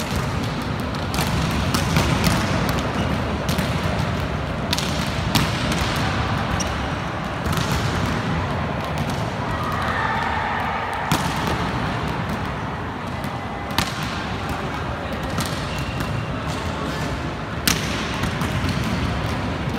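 Volleyballs being struck and bouncing on the court floor during a warm-up in a large sports hall: sharp slaps and thuds at irregular intervals throughout, over a steady background din of the hall.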